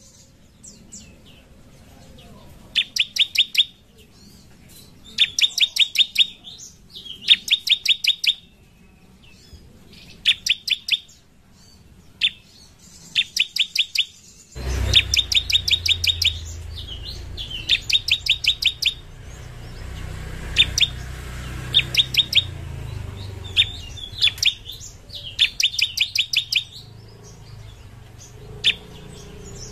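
Bar-winged prinia (ciblek) singing: short, fast rattling trills of sharp high notes, about nine notes to each burst, repeated every second or two. A low background rumble comes in about halfway through.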